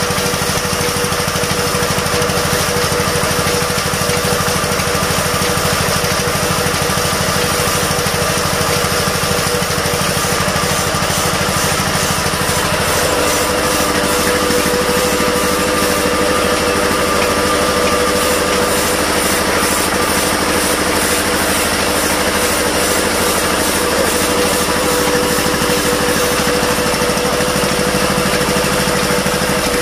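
A 15HP Kirloskar diesel engine running steadily with a fast, even beat and a steady whine over it. The lower part of the sound changes about 13 seconds in.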